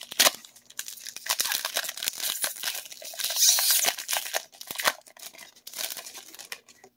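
Pokémon TCG Silver Tempest booster pack being torn open by hand: the foil wrapper tearing and crinkling in quick crackles as the cards are pulled out, with a sharp crackle right at the start.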